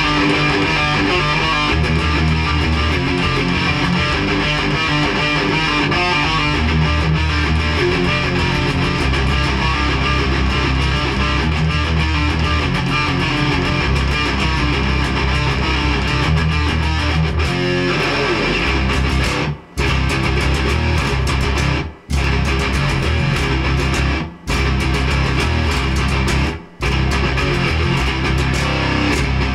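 Loud electric guitar music with bass guitar, played continuously and broken by four short full stops in the second half, each about two and a half seconds apart.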